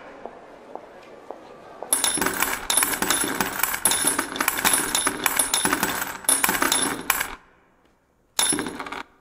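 Accordion played with an extended technique: dense, fast clicking and rattling as the hand strikes and rubs across the bellows. It starts about two seconds in, stops short after about seven seconds, and comes back in one brief burst near the end.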